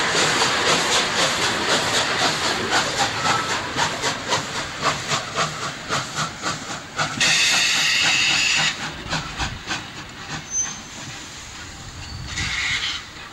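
Polish 2-10-0 freight steam locomotive working slowly with its cylinder drain cocks open: quick, even chuffs of exhaust with steam hiss, fading away. A loud blast of escaping steam comes about seven seconds in and lasts a second and a half, and a shorter blast comes near the end.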